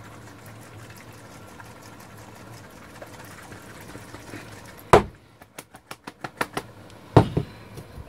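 Small jar of conductive silver paint shaken by hand, heard only as faint, even ticking. About five seconds in comes a sharp knock on the bench, then a quick run of small clicks as the cap is worked off, and another knock about two seconds later.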